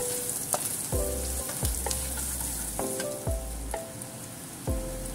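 Sliced onion, ginger and spices sizzling in hot oil in a nonstick frying pan, stirred and turned with a wooden spatula.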